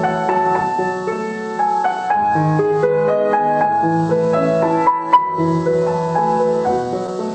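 Piano music, a melody of held notes over low bass notes, with a brief click about five seconds in.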